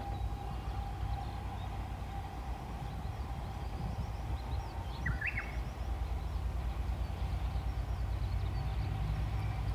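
Open-air ambience beside a railway line: a steady low rumble with a faint steady hum above it, and a short chirping bird call about halfway through.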